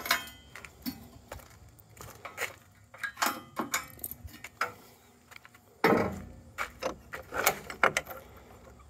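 Steel brush guard pins and a hood latch on a Hummer H1 being handled: a string of light metallic clinks and rattles, with a louder knock about six seconds in.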